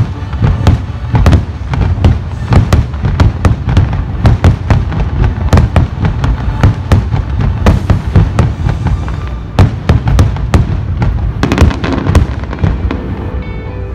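A fireworks display: a rapid, continuous run of shell bursts, with sharp bangs and crackles over a low rumble of booms, thickest about three-quarters of the way through.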